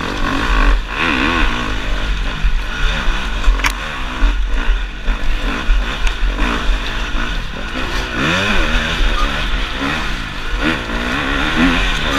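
Enduro dirt bike engine heard close up while riding, revving up and down again and again as the throttle opens and closes. A single sharp click comes about three and a half seconds in.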